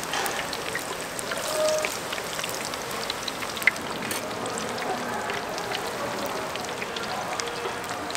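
Battered Korean fried food (twigim) deep-frying in hot oil, a steady sizzle made of many small crackling pops. A single sharp click stands out about three and a half seconds in.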